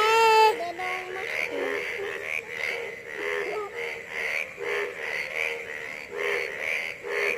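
A chorus of frogs calling, many short repeated calls overlapping in a steady pulsing rhythm. A loud rising cry opens it.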